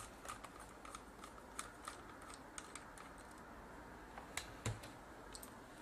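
Faint, irregular small clicks and ticks of a screwdriver working a small silver screw out of the camcorder's side panel, with a slightly louder knock about four and a half seconds in.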